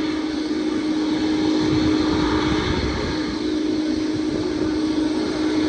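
Jet airliner engines running at taxi power: a steady rumble with a constant low hum throughout.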